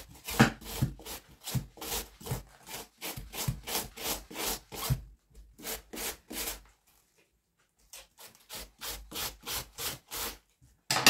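A head of white cabbage being shredded with a wide shredding knife onto a wooden board: rhythmic crisp slicing strokes, about two a second. The strokes pause for about a second past the middle, then resume.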